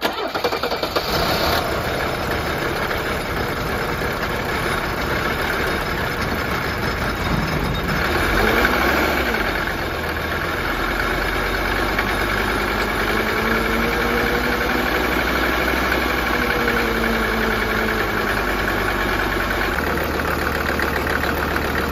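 Mercedes OM617 five-cylinder turbo diesel firing up at once and running at idle with diesel clatter, now that its glow plugs are getting power. The sound comes in suddenly and is a little brighter for the first second or so before it settles.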